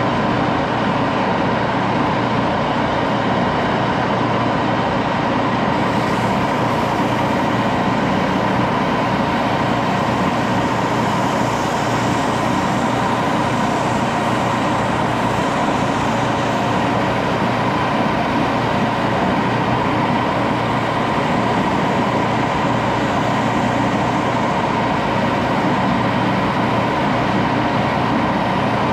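A 1941 Axelson engine lathe running steadily, its motor and drive giving a constant hum with a whine. A higher hiss comes in about six seconds in, as the handle is being machined and polished in it.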